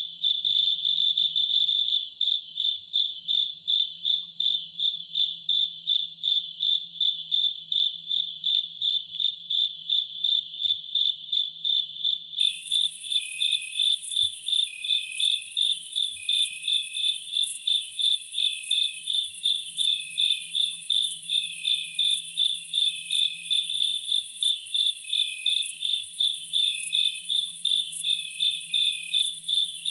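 Insects chirping in a steady, high-pitched pulsing rhythm, about two or three pulses a second. About twelve seconds in, a second, higher insect call joins it and runs alongside.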